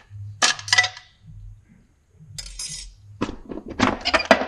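Metal-on-metal clinking and scraping as the center support of a 5R110W automatic transmission is pried and pulled out of the case: a couple of clinks about half a second in, a scrape around the middle, then a quick run of clinks and knocks near the end.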